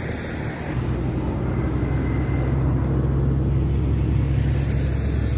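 Steady low drone of road traffic, a motor vehicle's engine running close by, growing stronger about a second in.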